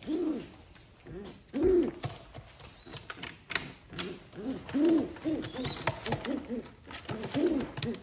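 Pigeons cooing over and over in short, low, arching notes, with a few sharp clicks and knocks as the slatted lid of a wooden pigeon carrier is opened and a hand reaches in among the birds.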